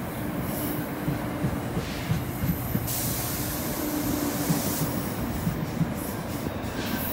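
NJ Transit stainless-steel passenger coaches rolling past at close range, the wheels giving irregular thumps over the rail under a steady rumble and hum. A louder high-pitched hiss comes in about three seconds in and lasts about two seconds.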